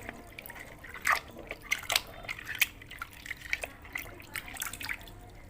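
Water splashing and dripping as a plastic toy is washed by hand in a basin of muddy water: irregular small splashes and drips.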